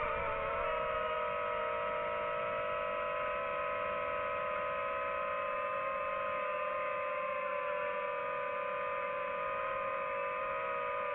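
FPV quadcopter's motors and propellers whining steadily, several close tones from the motors spinning at slightly different speeds, the pitch shifting a little with throttle about a second in and again near the end.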